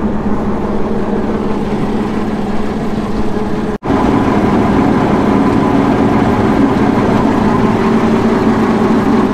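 Alvis Stalwart's engine running steadily at idle with the swim-gear drive engaged, its propeller drive shafts spinning in the engine bay, a continuous mechanical drone with a steady low hum. A momentary break about four seconds in.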